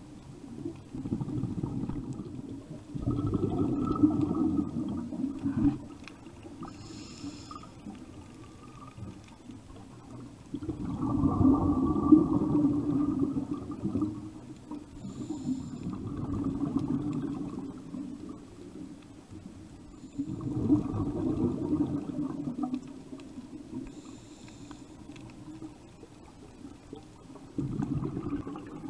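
Scuba divers breathing through their regulators underwater: each exhalation comes as a rumbling, gurgling burst of bubbles lasting two to three seconds, five times, with faint hissing inhalations in the quieter gaps between.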